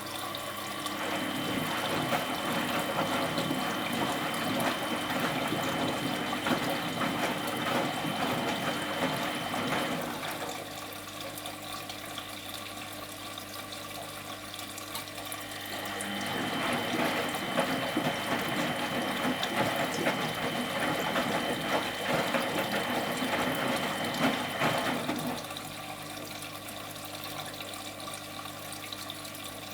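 Miele Professional WS 5426 washing machine working through a wash with water in the drum: two spells of about ten seconds of water churning and machine noise, with a steady high tone, separated by a quieter pause of several seconds.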